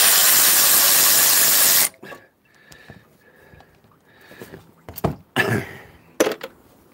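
Cordless electric ratchet spinning for about two seconds as it runs out a 10 mm bolt, then stopping abruptly. A few short knocks and clicks of tool handling follow later.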